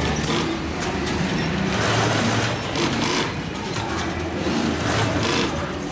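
Workshop din of several industrial sewing machines stitching heavy leather: motors humming as they speed up and slow down, with many short mechanical clicks.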